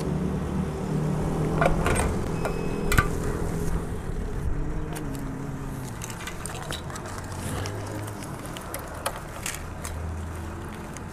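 Motorcycle engine running under the rider, easing off about four seconds in, with scattered clicks and rattles.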